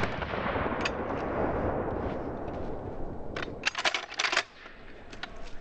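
The echo of a shotgun blast dying away over about three seconds, with a single click about a second in. Then comes a quick run of metallic clicks and clacks from the pump-action shotgun as it is loaded and worked, and a couple more clicks near the end.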